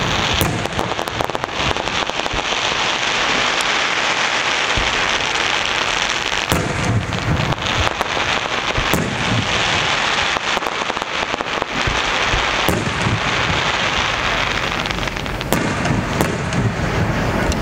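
Aerial fireworks: a dense, continuous crackling from glittering crackle stars, broken by sharp shell bursts with low thuds about six and a half seconds in and twice near the end.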